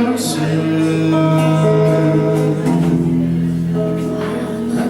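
Live song: a man sings and holds long notes over acoustic guitar accompaniment.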